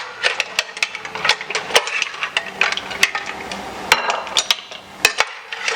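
A busy, irregular run of sharp clicks and knocks of utensils and dishes, several a second, as food is handled and served.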